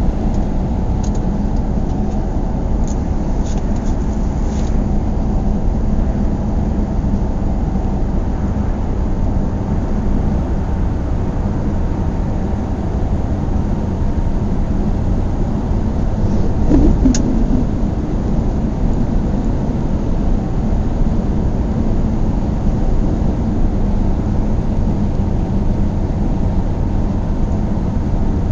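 A car driving at a steady pace, its engine and road noise a constant low rumble. A few faint ticks come in the first few seconds and a short knock about seventeen seconds in.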